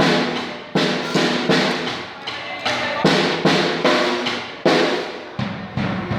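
A drum kit being played, with loud strikes coming about two to three times a second, each ringing on before the next.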